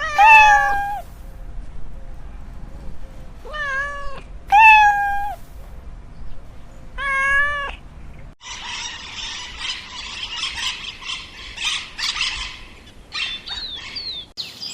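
A domestic cat meowing four times, each call about half a second to a second long. After about eight seconds the sound cuts to a noisy stretch with a few short chirps near the end.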